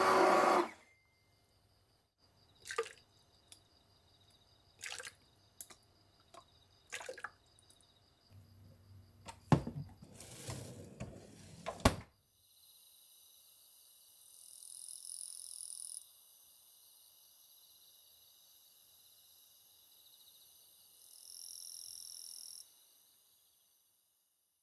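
A stick blender pureeing tomato soup in a steel pot cuts off in the first second. A few scattered knocks and clinks follow, with a louder clatter around the ten-second mark. Then, about halfway through, a steady high-pitched chorus of night insects takes over and fades out near the end.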